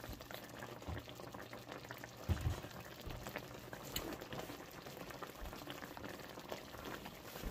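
Onion gravy with cube steaks simmering in a pan, bubbling and popping steadily. A soft low bump comes a little over two seconds in.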